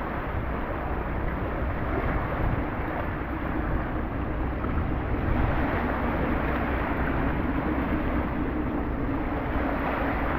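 Sea waves washing steadily onto a sandy shore, with wind rumbling on the microphone.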